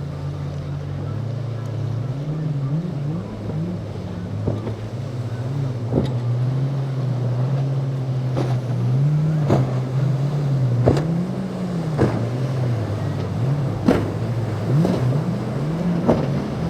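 Boat engines running, their pitch repeatedly rising and falling as the throttle changes, with sharp knocks every second or two.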